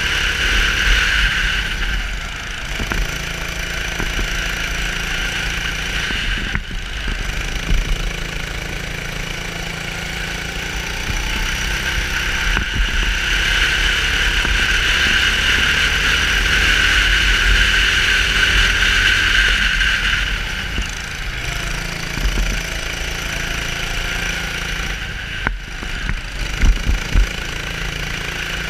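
Onboard sound of a 270cc four-stroke rental kart engine running hard through a race lap, steady and continuous, swelling louder for several seconds past the middle and easing back with the throttle through the corners.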